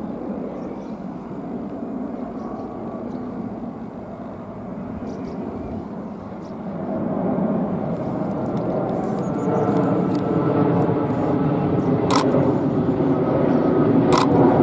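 Jet engines of a Boeing 787-8 Dreamliner on final approach, a steady rushing noise with a faint whine that grows louder as the airliner comes closer. Two sharp camera-shutter clicks come near the end.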